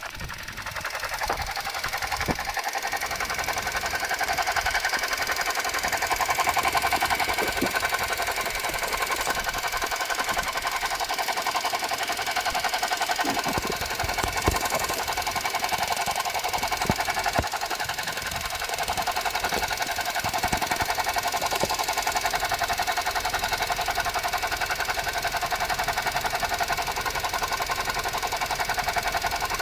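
Suzuki Jimny JB64's 660 cc turbo three-cylinder engine idling steadily under the hood, with a fast, rattling whir from the alternator: an abnormal noise from a faulty alternator.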